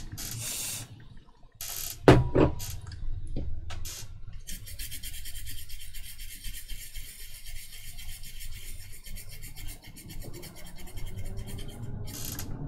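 A small brush scrubbing flux residue off a circuit board's solder pads. A few separate scrapes come first, with a sharp knock about two seconds in, then fast, even scrubbing strokes through the second half.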